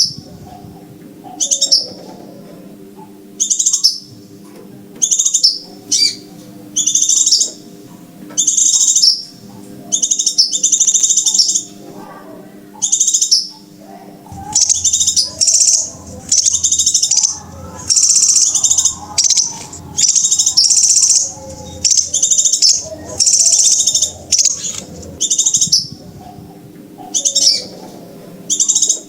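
Crimson sunbird (sepah raja) calls played as a bird-trapping lure recording: a run of loud, high, rapid chirping bursts, each about half a second to a second long, repeating roughly every second, over a faint low hum.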